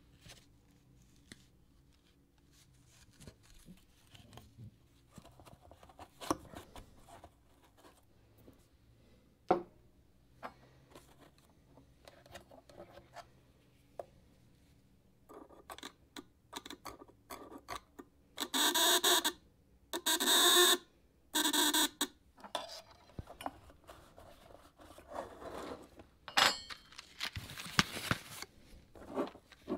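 The game's battery-powered electromagnetic buzzer sounds in three short buzzes of about a second each, about two-thirds of the way in, as the metal probe closes its circuit. Light clicks of handling come before the buzzes, and a paper envelope rustles near the end.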